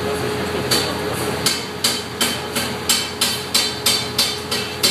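Metal tool striking metal in a steady series of ringing taps, about three a second, starting a little under a second in. Underneath runs the steady drone of the glass furnace's burner.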